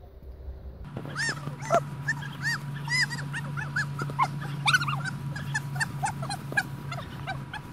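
A dog's rapid, high-pitched yips and whimpers, many short squeals a second, starting abruptly about a second in over a steady low hum.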